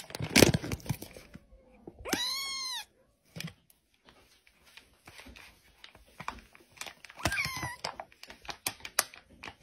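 A kitten meowing: a high call that rises and falls about two seconds in, and another one near the end. Between the calls there is the crinkling of the foil bag the kitten sits in.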